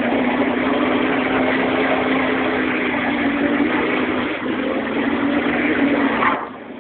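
Honda GX engine of a small off-road buggy running hard at one steady pitch, then the throttle is let off about six seconds in and the engine note drops sharply.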